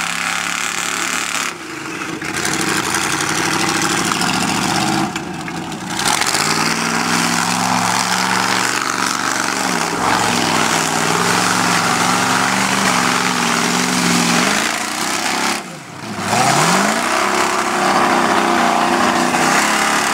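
Lifted mud-bog Jeep's engine revving hard as it ploughs through a mud pit, the revs dropping and climbing again several times, with a loud rush of splashing mud and water.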